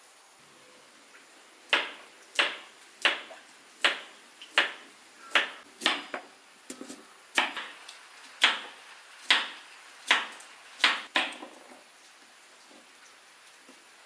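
Kitchen knife slicing a white radish (daikon) into rounds on a wooden cutting board: about a dozen crisp chops, roughly one every three-quarters of a second, stopping a few seconds before the end.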